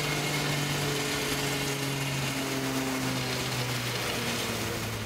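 River-crossing cable car (andarivel) moving along its cable: a steady mechanical hum whose pitch slowly drops and fades a little near the end, as if the car is slowing.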